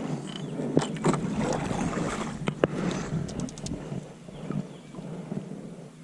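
A kayak being paddled: water splashing and swishing, with a few sharp knocks and a quick run of light clicks, loudest in the first three and a half seconds or so.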